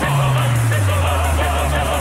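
Background music: deep, long held bass notes under a wavering singing voice, the bass note changing about a second and a half in.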